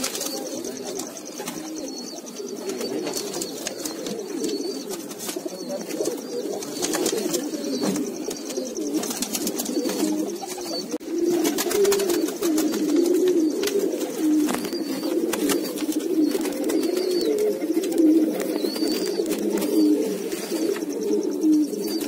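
Domestic high-flyer pigeons cooing, a low rolling coo that goes on without a break and grows louder about halfway through. The sound has the close ring of a small wooden nest box.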